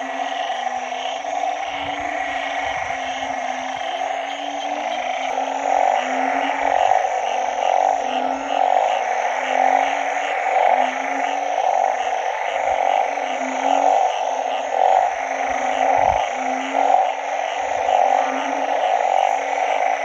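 A chorus of frogs calling from a rain-filled puddle. A low call repeats about every three-quarters of a second over a dense, pulsing mid-pitched chorus and a fainter, higher pulsing call.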